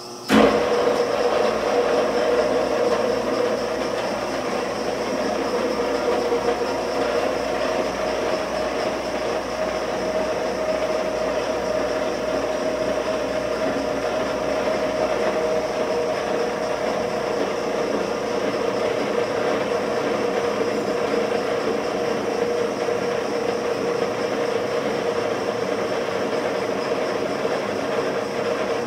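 Aronson HD-100 welding positioner's electric tilt motor and gear drive, tilting the table up from flat toward vertical. It starts suddenly with a clunk, then runs steadily with a held mid-pitched tone.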